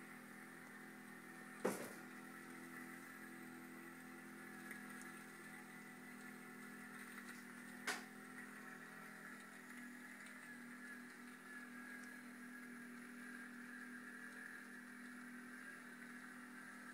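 Kawasaki Brute Force 750i ATV's V-twin engine running at a steady pace, faint and even. Two sharp knocks cut through it, about two seconds in and again about eight seconds in.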